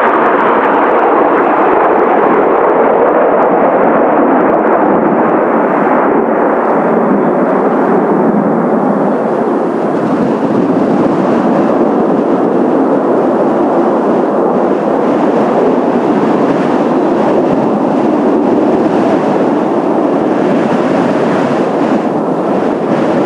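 Steady jet engine noise from Blue Impulse Kawasaki T-4 jet trainers flying in formation, a continuous rumble that holds at an even level throughout.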